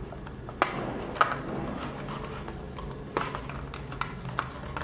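Clear plastic packaging tray clicking and crackling as earphones are pried out of it, with a few sharp clicks scattered irregularly.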